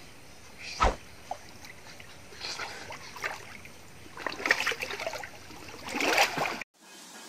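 Pond water sloshing and splashing in several bursts as a person wades out of waist-deep water, with a single thump about a second in. The sound cuts off abruptly near the end.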